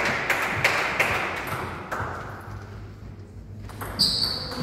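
Table tennis ball clicking and bouncing, echoing in a large hall: several quick clicks in the first second, a quieter spell, then a sharp ringing ping about four seconds in.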